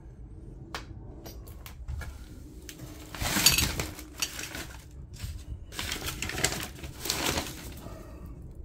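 Rummaging through a pile of old magazines and debris: paper rustling and small things clattering in several short bursts, the loudest about three seconds in.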